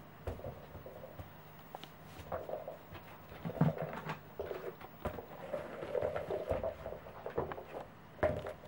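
Pembroke Welsh corgi mouthing and nosing a hard plastic toy across a wooden floor: irregular knocks and clacks as the toy is bitten, dropped and pushed, with the dog's snuffling.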